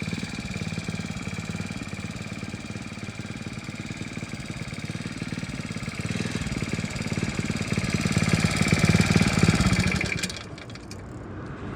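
MEIWA RT-50R tamping rammer's petrol engine running at low speed, picking up revs and getting louder from about six seconds in, then dropping back abruptly just after ten seconds.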